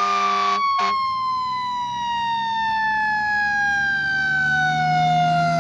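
A siren-like tone held briefly and then sliding slowly and evenly down in pitch over several seconds.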